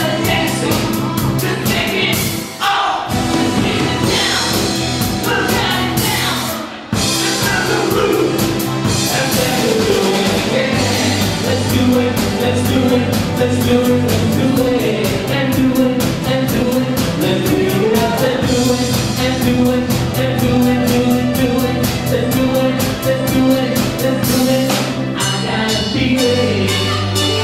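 Live band playing: drum kit, electric guitars and lead vocals, with two brief breaks in the music about three and seven seconds in.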